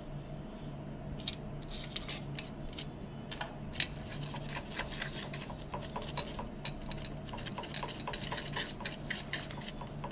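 Two-part epoxy being mixed by hand with a small tool: light scraping and tapping, sparse at first, then settling into about four light ticks a second from about four seconds in, over a steady low hum.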